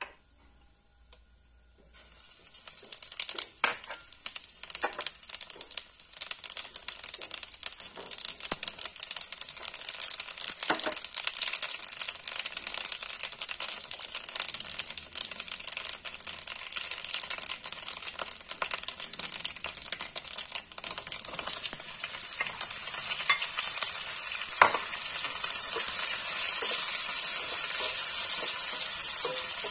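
Hot oil sizzling and crackling in a wok as black cumin seeds fry, starting about two seconds in. Near the end, raw mango slices go into the pan and the sizzle grows louder and steadier.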